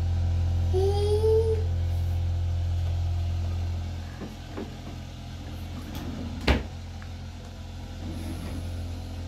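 A steady low hum that drops away about four seconds in. A small child makes one short rising vocal sound about a second in, and there is a single sharp knock later on.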